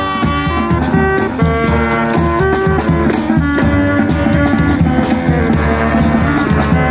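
Honk band of brass horns and drums playing a tune together, with held horn notes over a steady drum beat.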